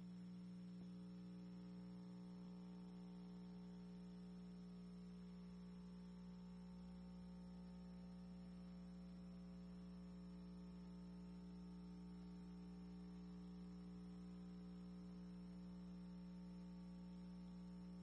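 Near silence, with a faint steady electrical hum.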